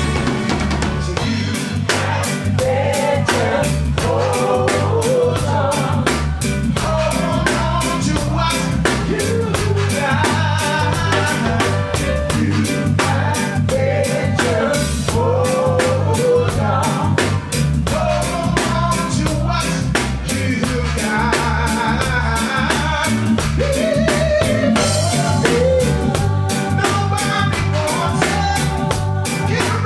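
Live reggae band playing, with drum kit and a steady repeating bass line, and a singer's voice over it into a microphone.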